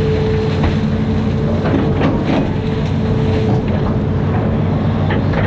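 Amphibious excavator's diesel engine running steadily, with a few short knocks during the work.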